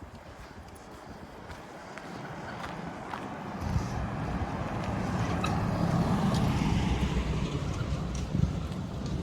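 A road vehicle passing: a rumble with tyre hiss that swells from about four seconds in, peaks a couple of seconds later and fades toward the end.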